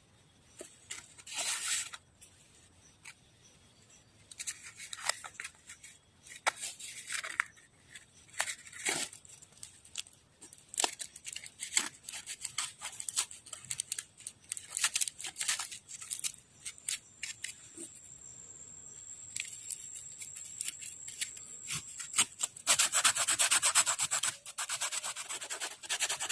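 Hand scraping and sanding of a fishing float being shaped by hand: irregular short strokes with pauses between them, then a quick run of rapid back-and-forth strokes near the end.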